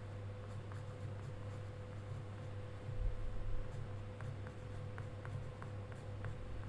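Pen writing on a paper card: faint scratching strokes with a run of light ticks in the later seconds, over a steady low hum.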